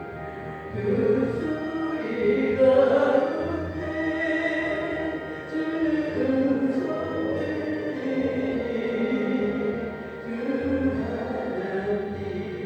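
Worship singing from a prayer house: a group of voices singing a Christian hymn over sustained instrumental backing.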